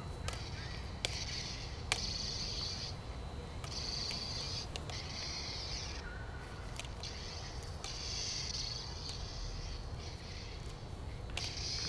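Toy light saber's electronic swing and clash sound effects, in about seven short buzzy bursts as it is swung and struck. Sharp clacks between them from the bamboo stick hitting the plastic blade.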